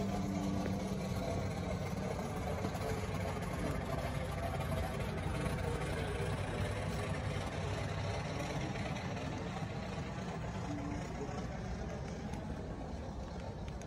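Steady low mechanical drone with a hum, fading a little in the second half.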